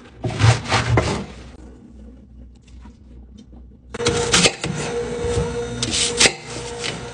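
Kitchen knife cutting kale leaves away from their stems, then slicing through apples, in crisp crunching strokes. In the second half a steady hum runs under the cutting, and the sound cuts off suddenly at the end.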